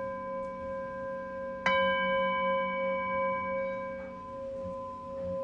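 Singing bowl ringing with a steady, slowly pulsing hum, struck again about a second and a half in so that brighter overtones ring out and then fade.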